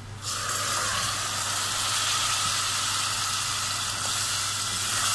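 Puréed tomatoes hitting onions frying in hot ghee, setting off a loud sizzle that starts suddenly just after the pour begins and then holds steady.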